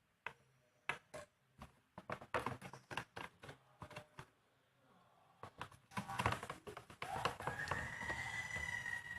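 Stirring stick clicking and scraping against a plastic container as glue slime is mixed with the activator, in separate taps at first, then a denser stretch of stirring. A steady high squeal sounds over the stirring near the end.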